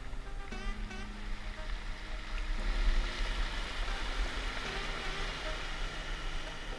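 Sea water washing and surging against the shore, with wind rumbling on the microphone.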